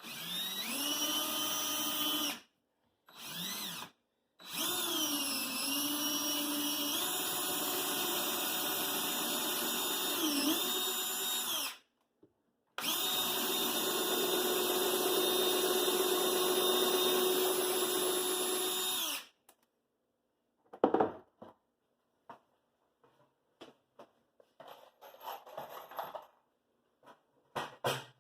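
Power drill driving screws, its motor whine running in four bursts, the longest about seven seconds, with the pitch dipping briefly as it bogs under load. Afterwards a few light clicks and knocks.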